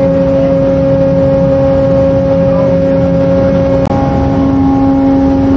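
Steady ship's machinery hum, a low drone with a few held tones that shift slightly about four seconds in, over wind noise on the microphone.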